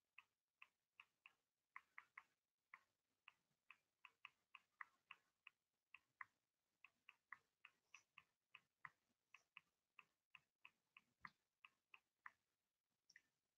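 Faint, irregular clicking, about two to three sharp clicks a second, with no steady beat.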